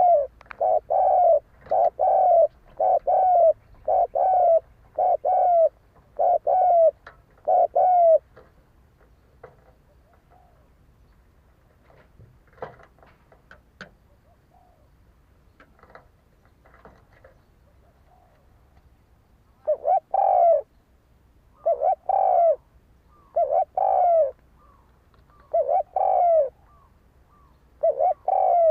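Spotted dove cooing: the challenge call of a wild male. A quick run of low coos lasts about eight seconds, then a pause with a few faint clicks, then coos come again about every two seconds near the end.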